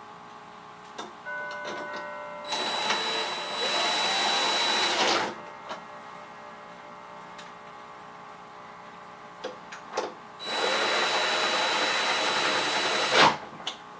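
Cordless drill/driver running in two bursts of a few seconds each, with a steady whining whir, driving in the screws of a lever door handle. A few light clicks come between the bursts.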